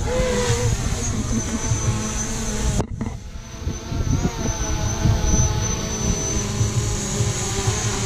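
Strong wind buffeting the microphone with a heavy, gusting rumble, over a faint steady mechanical whine. The sound cuts out abruptly for a moment about three seconds in.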